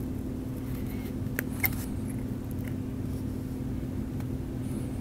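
Steady low room hum with a faint constant tone, and a couple of faint light clicks of steel surgical instruments about a second and a half in.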